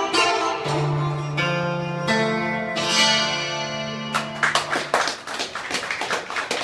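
Two bouzoukis playing the closing phrase of a Greek tune, ending on long held notes that die away about five seconds in. About four seconds in, hand clapping and applause start over the last notes.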